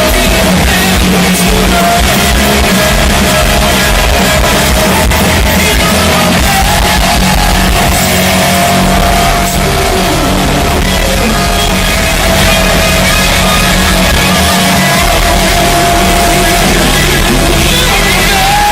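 Live rock band playing loudly, with an electric guitar holding long sustained notes and some singing.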